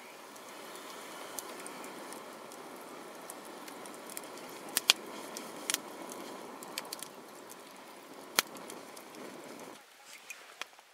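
Campfire of dry firewood burning with a steady rush of flame and a few sharp pops, two close together about five seconds in and another just past eight seconds. The fire sound cuts off abruptly near the end.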